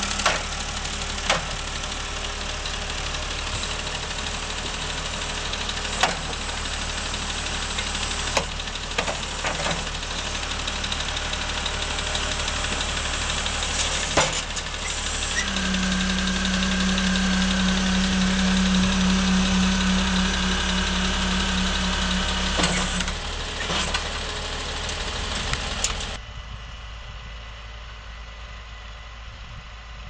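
John Deere 3650 tractor's diesel engine running as it powers a rear-mounted forestry crane, with sharp knocks every few seconds. In the middle the engine grows louder for several seconds with a steady hum added. Near the end the sound drops to a quieter engine running.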